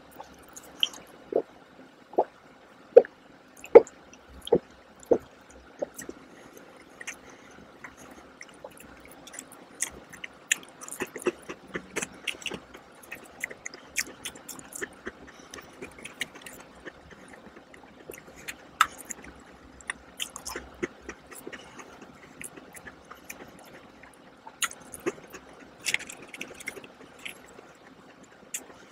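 Close-miked gulping as a drink is swallowed from a plastic cup, about eight swallows in the first six seconds, then crunchy small cookies being chewed, with a steady run of crackles and mouth clicks.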